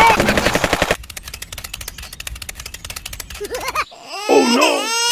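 Machine-gun fire sound effect, a rapid even rattle of shots that is loud for about the first second and then goes on more quietly. Near the end a high voice cries out in wavering, bending tones.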